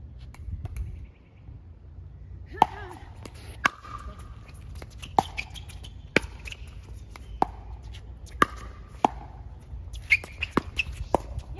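Pickleball rally: paddles popping against a hollow plastic ball about once a second, quickening into a rapid exchange of volleys near the end.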